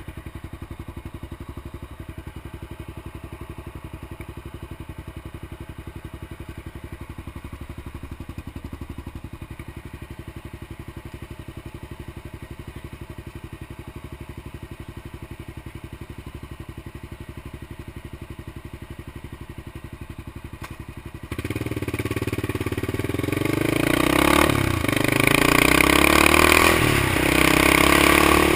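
Honda XR650L single-cylinder four-stroke engine idling with an even thumping beat, then, about 21 seconds in, revving up as it pulls away. Its pitch rises and drops back with each upshift, and wind noise comes in as it gathers speed.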